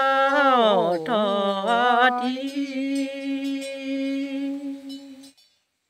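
A single voice chanting a Karen tha (a traditional Pgakenyaw sung poem), unaccompanied: one long held note that swoops down and back up about a second in, then holds steady and stops about five seconds in.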